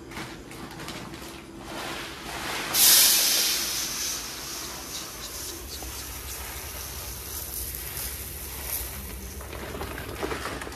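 Dry rice grains pouring from a plastic bag into a metal storage container: a steady hiss that starts suddenly about three seconds in, is loudest at first, then thins out and fades near the end.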